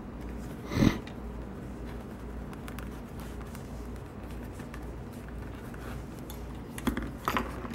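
Hand saddle stitching on a leather holster: needles and waxed thread worked back through a stitching hole, with a brief rasp about a second in and a few light clicks and rasps near the end, over a steady low room hum.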